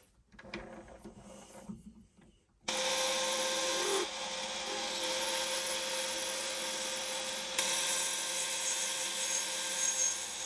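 A lathe running steadily, turning a small workpiece, with a constant tone throughout. It starts abruptly about two and a half seconds in, after a few quiet handling sounds.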